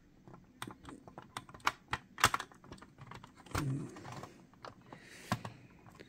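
Irregular light plastic clicks and taps from the lid of a Freesat UHD set-top box being pressed and lined up to snap back onto the case.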